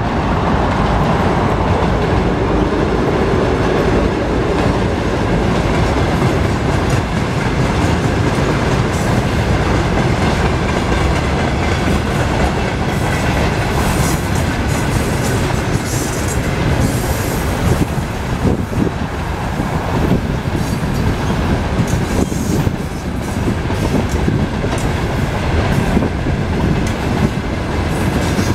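Freight train rolling past at close range: the 2M62U twin-section locomotive's two-stroke diesel engines go by in the first seconds, then a long string of tank cars, gondolas and flatcars rumbles past with wheels clacking steadily over the rail joints.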